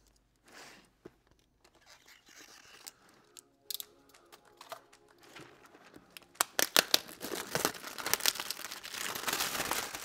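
Clear plastic shrink-wrap being cut and torn off a plastic connector storage box. After a few faint clicks and scrapes, loud crinkling and crackling sets in about six seconds in as the wrapping is pulled away.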